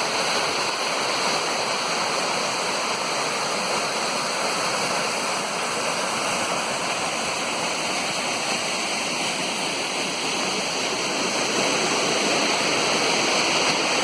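Mountain creek water rushing over falls: a steady, even rush that swells slightly a little past the halfway mark.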